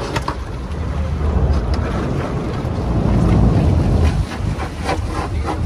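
Boat running on open water, with a low rumble and wind buffeting the microphone. It swells to its loudest about three seconds in and eases off at about four seconds.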